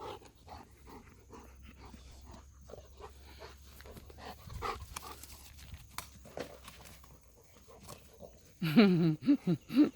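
A dog panting faintly in short, irregular breaths. About nine seconds in, a loud, wavering voice cuts in.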